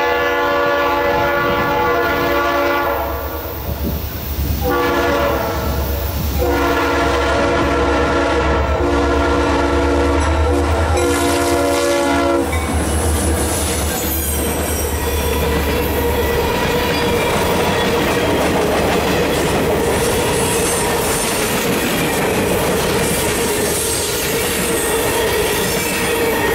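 Diesel locomotive air horn sounding a long blast, a shorter one, then a long blast of about six seconds, over the low rumble of the lead SD40-2 locomotives' two-stroke diesel engines. After the horn stops, freight cars roll past with steady wheel squeal and clickety-clack.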